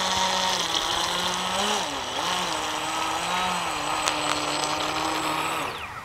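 Brushless RC speedboat running fast across the water: a steady motor whine over the hiss of its spray. The pitch dips and comes back up twice with the throttle, then falls away near the end.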